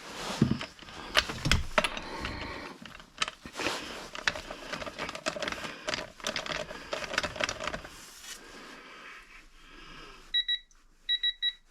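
Metal clicks, knocks and scraping as a wrench and socket are worked on a lug nut. Near the end, a digital torque adapter gives short high electronic beeps: two, then three in quick succession.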